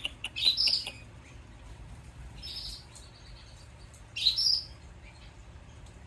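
Newborn Isabel canary chick begging: three short, high cheeps about two seconds apart, the first mixed with a few light clicks.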